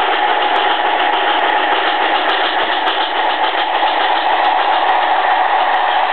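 HO-scale metal model locomotives running past close by: the electric motors and metal wheels on three-rail track make a steady whirring rumble with a faint constant whine.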